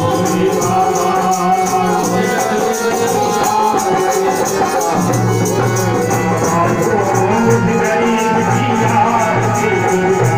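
Devotional kirtan music: harmonium chords and a voice singing over a steady, rapid jingling shaker-like beat.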